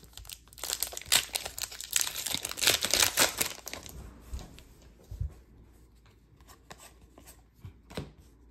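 A hockey card pack's wrapper being torn open and crinkled for about three seconds, then softer light clicks and flicks as the cards are slid out and handled.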